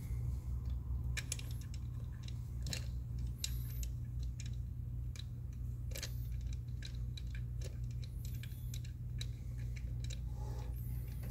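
Small irregular metallic clicks and taps of the N55 fuel injector tool's anchor bolts being threaded in by hand, the metal tool shifting against the engine as it is tightened, over a steady low hum.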